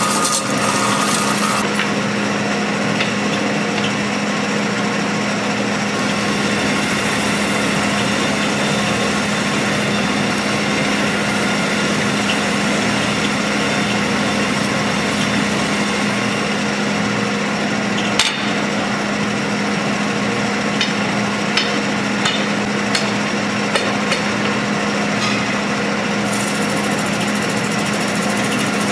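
Metal spinning lathe running, with a steady low motor hum and a continuous scraping as the lever-held spinning tool presses against the rotating sheet-metal dome. A sharp click comes about 18 seconds in, followed by a few small ticks.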